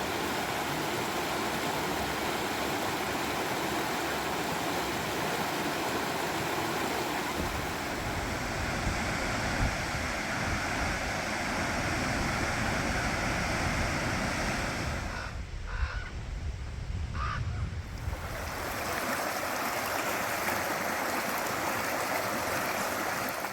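Rushing water of a mountain stream, a steady hiss, dipping quieter for a few seconds about two-thirds of the way through.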